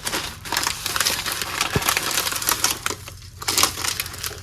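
Plastic ration packets crinkling and rustling as they are handled, with many small crackles and a short lull about three seconds in.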